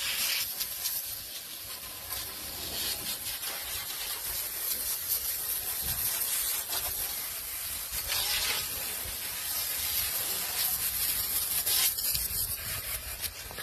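Water hose spraying into the hopper of a Reed Lova gunite machine to rinse it out: a steady hiss of the jet, swelling and easing as the stream moves. A low rumble comes in near the end.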